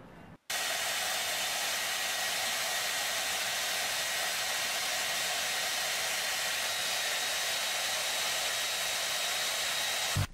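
Handheld hair dryer running steadily, an even rushing hiss of blown air with a faint steady whine in it. It starts abruptly about half a second in and cuts off near the end.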